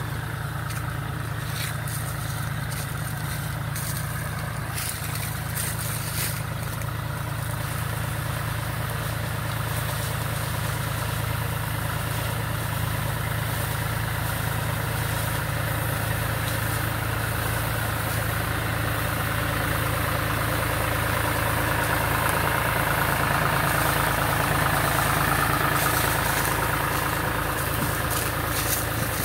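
Diesel tractor engine running steadily while it powers a tractor-mounted orchard sprayer. It grows gradually louder as the tractor comes closer and is loudest a few seconds before the end.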